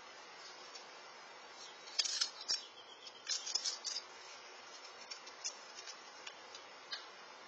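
A squirrel cracking and gnawing peanut shells close to the microphone: a scatter of sharp crackles and clicks, densest about two to four seconds in, then sparser.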